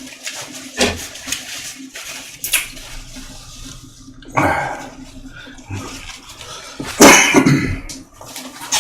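A person eating at close range with a few noisy slurps, the loudest about seven seconds in.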